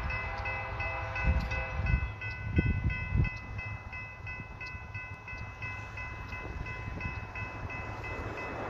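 Railroad grade-crossing warning bell ringing in quick repeated strokes, about three a second, as a train approaches. A distant locomotive horn sounds faintly during the first two seconds, and a few low gusts of wind noise come in between about one and three seconds.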